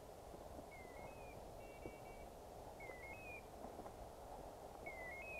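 Faint electronic beeping from a hunting dog's beeper collar: a short two-step chirp about every two seconds, alternating with a flat double beep.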